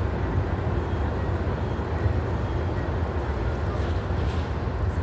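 Steady low rumble of outdoor city background noise, even in level throughout, with no single event standing out.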